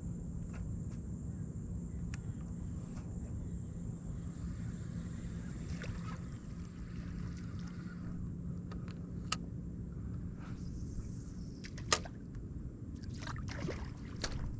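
Low steady water noise with faint sloshing around a wading angler, broken by scattered sharp clicks, two of them louder in the second half.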